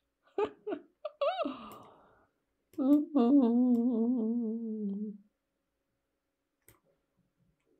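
A man's voice gives a few short murmurs, then a long wavering hummed "hmmm" lasting about two and a half seconds: a thoughtful, musing hum. A faint click comes near the end.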